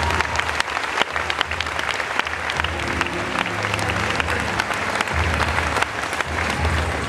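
Large audience applauding with dense, continuous clapping, and music playing underneath.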